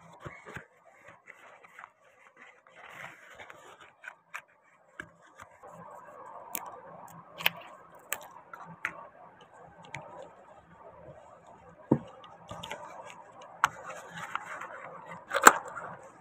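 Knife blade scraping and trimming the edges of a cast epoxy-resin airgun magazine part, with scattered sharp clicks of small plastic parts being handled and fitted together; the loudest click comes near the end.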